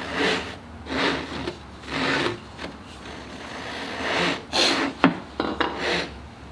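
Japanese pull saw crosscutting a strip of hardwood on a bench hook: a run of short rasping strokes about once a second, with a sharp tick about five seconds in.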